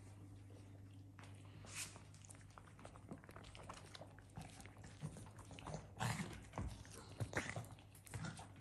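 Faint, irregular mouth and chewing-like sounds with rustling from a poodle lying with its puppies, over a steady low hum; the loudest bursts come about six to seven and a half seconds in.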